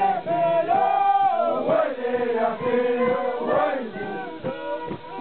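Andean folk dance music: a violin playing a tune, with voices singing or chanting along.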